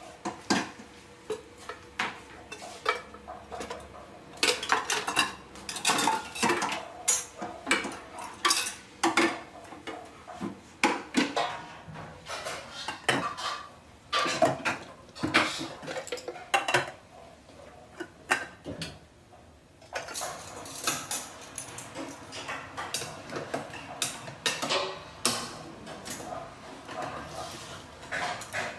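Stainless steel pots, lids and serving spoons clinking and clattering in quick, irregular knocks as food is spooned out of the pots, with a brief lull about two-thirds of the way through.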